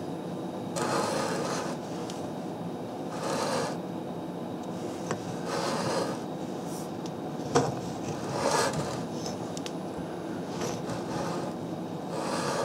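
Short scrapes and rubs of metal on the DC plow motor's steel housing as it is handled, about five in all, a few seconds apart, with one sharp click about seven and a half seconds in. A steady low hum runs underneath.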